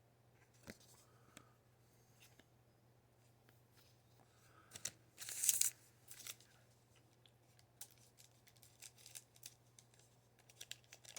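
A trading-card pack's wrapper torn open in one short rip about halfway through, amid light rustles and clicks of cards being handled.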